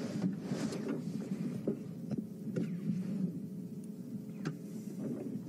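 Low, steady rumble of an idling vehicle engine, with a few faint scattered clicks.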